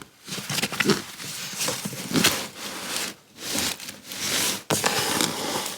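Rustling and handling of bags and packaging as someone rummages through items, in irregular bursts with short pauses.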